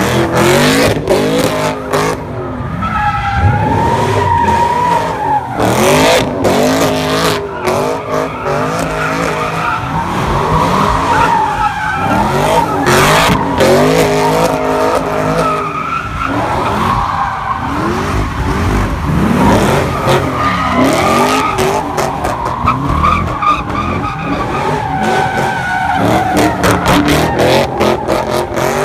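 A car spinning donuts: the engine revs hard, rising and falling over and over, while the rear tyres squeal and skid against the pavement.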